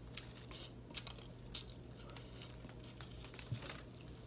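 Boiled shrimp being handled, peeled and eaten with the fingers: a scattered handful of soft crackles and clicks of shell and mouth sounds, over a faint steady low hum.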